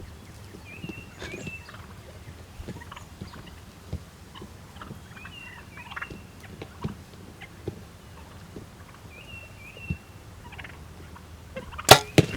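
Wild turkeys, young jakes, calling close by: short high calls every couple of seconds over scattered faint clicks. A single loud, sharp snap near the end.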